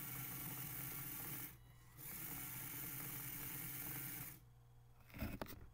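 Makeblock Robotic Arm Tank's geared DC drive motors whining as the rubber-tracked robot is driven, in two runs of about one and a half and two and a half seconds with a short stop between. A brief clatter of clicks near the end.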